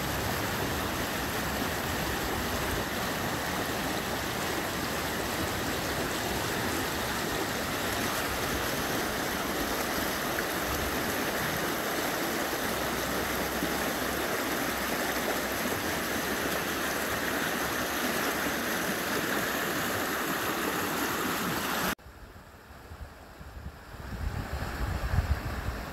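Rain-swollen creek running high and fast over a rock ledge and around boulders, a steady, dense rush of water. About 22 seconds in it cuts abruptly to a much fainter rush of the creek heard from further off, with low buffeting on the microphone near the end.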